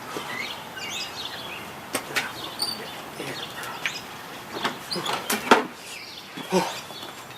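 Scattered sharp knocks and clicks, the loudest about five and a half seconds in, with a few short high chirping squeaks early on.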